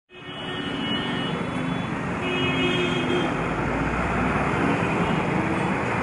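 Steady road traffic noise from passing motor vehicles on a busy city street, fading in at the very start.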